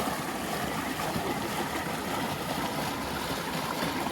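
Steady rush of flowing canyon creek water, an even hiss with no breaks.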